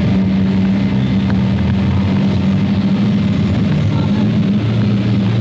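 Car engine running steadily with a low, even hum; its pitch shifts slightly a couple of times.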